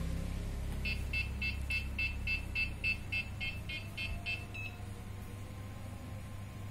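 Electronic beeping from the RC electronics: a quick, even run of about fourteen short, high beeps, roughly four a second, starting about a second in and stopping after nearly four seconds, over a faint low hum.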